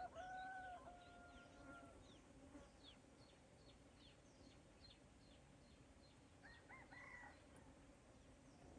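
Faint birdsong: a rooster crows once in the first two seconds, then a small bird gives a string of short, falling chirps about twice a second, with another brief call about seven seconds in.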